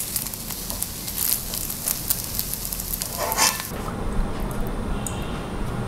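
Scrambled egg sizzling in a non-stick frying pan while a spatula stirs and scrapes it, with many small clicks. A louder scrape comes about three seconds in, then the sizzling stops, leaving a low steady hum.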